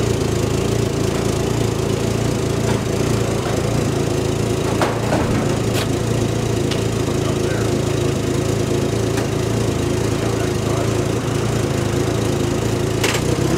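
An aircraft tug's engine running steadily as it slowly tows a wheeled shipping stand out of a steel shipping container, with a few sharp cracks and creaks from the stand and the container floor, the loudest near the end.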